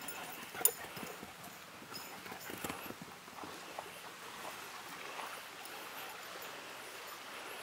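Running footsteps on grass and bare earth: uneven thuds and rustling, with one sharp knock a little under a second in.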